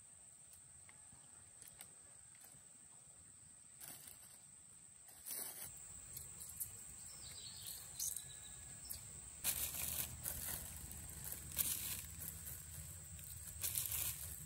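A steady high-pitched insect drone. In the second half it is joined by short bursts of crinkly plastic-bag rustling and hand-handling noise.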